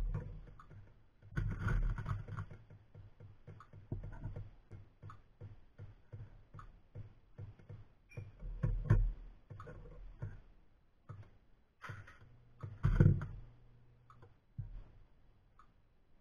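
A phone metronome ticking, used to time a brass case's immersion in a molten-salt annealing bath, with irregular knocks and clunks of the case and tongs being handled; the loudest knock comes about 13 seconds in.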